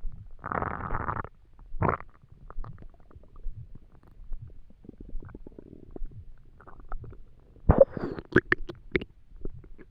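Empty, hungry stomach rumbling and gurgling in irregular bursts, with scattered little crackles and a run of sharp pops and squelches near the end.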